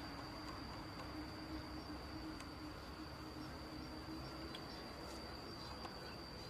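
Insect trilling: one steady high-pitched tone over faint background noise.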